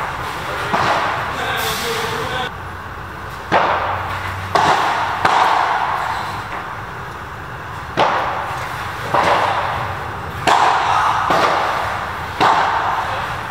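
Padel rally: a string of sharp hits of the ball off rackets, glass walls and the artificial-grass court, each with a short echo under the covered court's roof.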